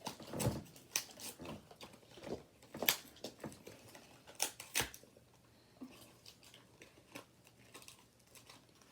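Blind-box packaging being torn and crinkled open by hand: a run of sharp crackles and snaps for about five seconds, then only a few faint rustles.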